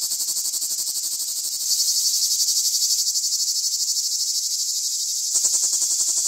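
Cicada song: a harsh, rapidly pulsing high-pitched buzz. It steps up in loudness about two seconds in and again near the end.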